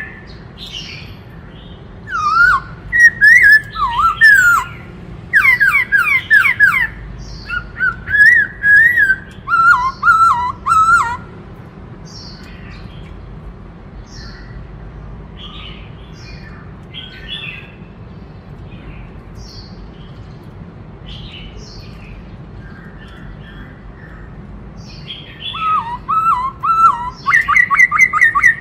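Black-throated laughingthrush (khướu bạc má) singing loud, clear, warbling whistled phrases in bursts. The bursts fill the first ten seconds or so and return near the end, with fainter chirps in the quieter stretch between.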